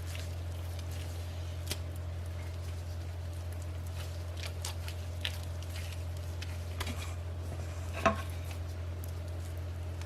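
Wet squishing and light patting of minced pork sausage mixture being worked by hand, with scattered small clicks and one sharper knock about eight seconds in, over a steady low hum.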